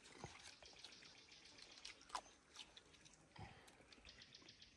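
Near silence with faint, scattered small clicks and ticks.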